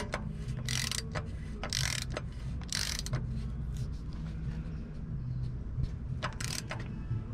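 Hand ratchet clicking in a few short bursts as it turns the oil filter housing cap tool, snugging the cap on by hand. A steady low hum runs underneath.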